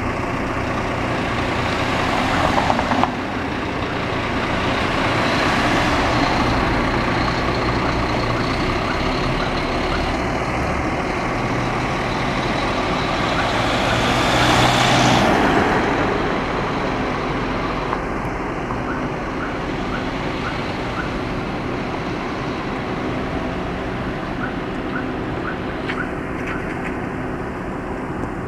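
Scania K400 coach's diesel engine running as the bus drives off, amid road traffic; a car passes close about halfway through, the loudest moment.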